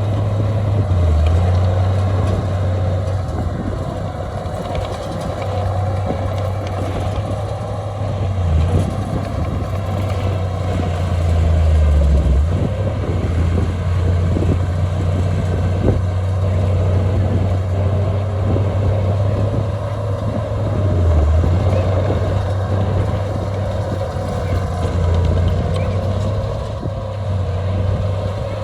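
Heavy diesel earthmoving machinery running steadily. A deep engine drone swells and eases every few seconds as the load changes.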